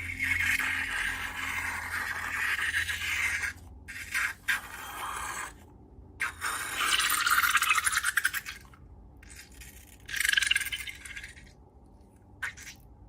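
Slime being squeezed and worked by hand, giving crackly, squishy bursts in several separate runs with short pauses between them.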